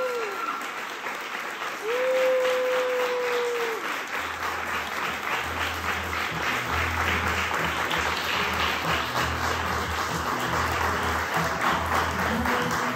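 Audience applauding, with two long held cheers in the first few seconds. From about four seconds in, music with a deep bass line comes in under the applause.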